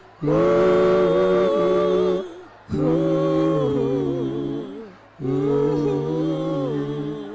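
A man's voice singing unaccompanied through a microphone: three long held "oh" notes, each about two seconds, with a short breath between them and a slight waver in pitch.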